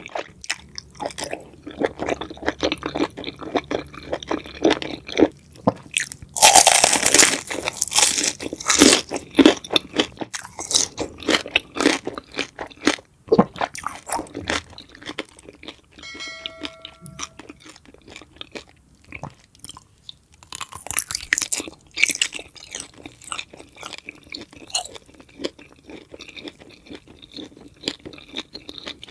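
Someone eating crunchy food: repeated crackling bites and chewing, loudest about a quarter of the way in, with a brief squeaky tone about halfway through.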